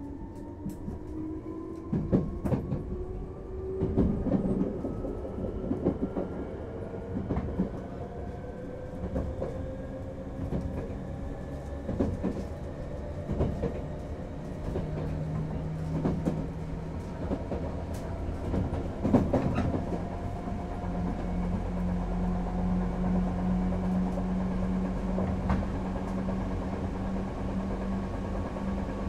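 Hankyu 3300 series resistance-controlled electric train running, heard aboard the car: the traction motor whine rises slowly in pitch as the train gathers speed away from Nagaoka-Tenjin. The wheels clack over rail joints every second or two, and a steady low hum comes in about two-thirds of the way through.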